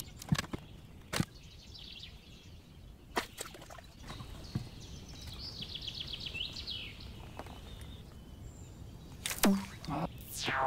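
A small songbird sings a rapid trill, with scattered knocks and taps from handling gear and fish in an inflatable boat. Near the end there is a louder knock, then a quick falling swish as a fly rod is cast.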